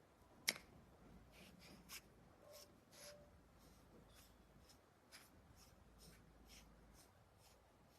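Faint handling sounds from a rifle scope: a scattering of light clicks and soft rubbing as the focus and locking rings are turned, the sharpest click about half a second in.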